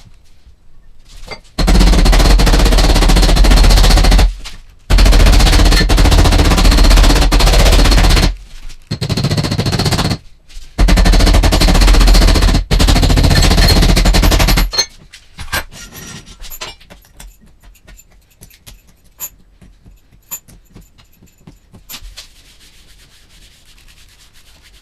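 A rotary power abrasive tool stripping paint from a dented car door panel down to bare metal, run in four bursts of a few seconds each with a steady high whine. After that come only scattered light clicks and taps.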